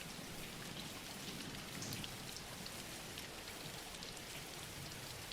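Steady soft rain falling, an even hiss with scattered pattering drops.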